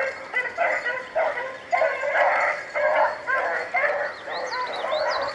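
Rabbit-hunting dogs baying in a continuous run of overlapping barks, about two to three a second: the dogs giving voice as they run a rabbit's trail.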